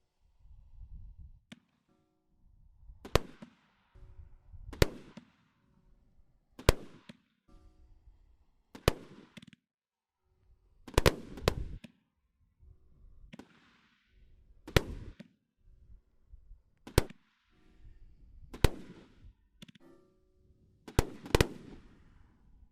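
A firework cake firing a series of shots. Each has a low launch thump followed by a sharp report, about one every two seconds, with two reports close together twice near the end.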